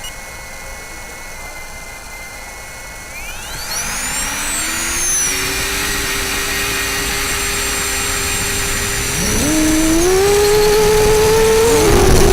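FPV racing quadcopter's EMAX RS2205S brushless motors whining, rising in pitch together about three seconds in as the throttle comes up, holding steady, then rising and getting louder again near the end as the drone is throttled up further.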